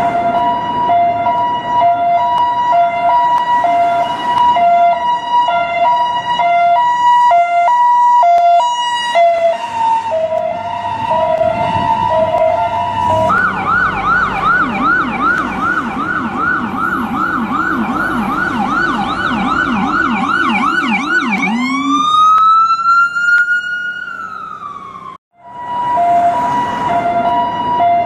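US ambulance siren cycling through its patterns. First a two-tone hi-lo alternation, which quickens for a few seconds. Then a rapid yelp of about three sweeps a second, with a lower tone sweeping along beneath it, and then a single wail that rises and slowly falls before cutting off suddenly; the hi-lo then starts again near the end.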